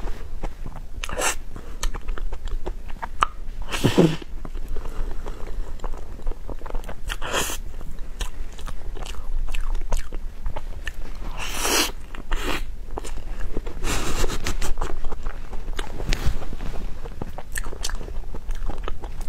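Close-miked chewing and biting of a person eating a cream dessert: wet mouth clicks throughout, with a few louder short breathy noises every few seconds.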